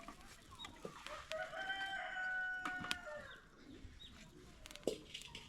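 A rooster crowing once, one long held call starting about a second in, with a few sharp knocks around it.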